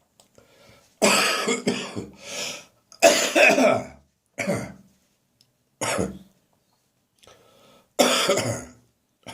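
A person coughing in a run of separate coughs and throat clearing, about six bursts with short pauses between them; a lingering cough that is turning drier.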